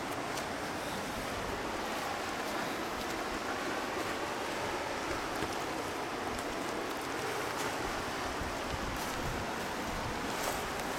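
Kunhar River flowing steadily past its stony bank, a continuous even rush of water.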